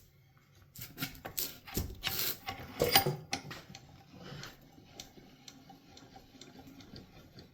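Small metal bench vise being handled and worked by hand: metal clicks and knocks, strongest in the first three seconds, then lighter irregular ticking.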